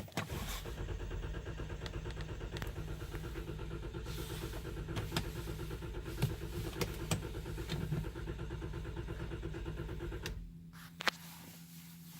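A 2012 Jeep Grand Cherokee (WK2) engine is cranked by the starter for about ten seconds without catching, a crank-no-start fault. The cranking stops suddenly, followed by a single click and a fainter steady hum.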